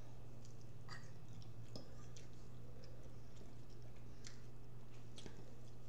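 Faint scattered clicks of a fork and knife against plates, with chewing, over a steady low hum.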